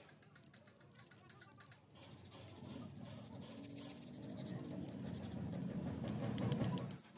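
Faint scratchy scraping that starts about two seconds in, grows gradually louder and stops just before the end.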